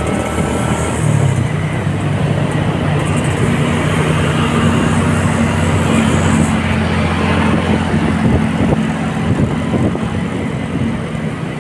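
Motorcycle engine running steadily while riding along a town street, with road and traffic noise.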